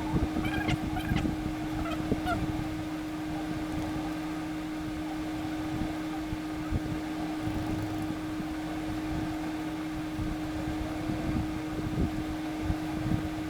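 Cake batter being mixed by hand in a bowl: irregular low knocks and scrapes of the utensil against the bowl, with a few brief squeaks in the first couple of seconds, over a steady background hum.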